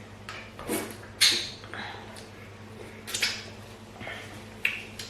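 Eating sounds: several short wet slurps and mouth noises as hot pepper soup and fufu are eaten by hand, over a faint steady hum.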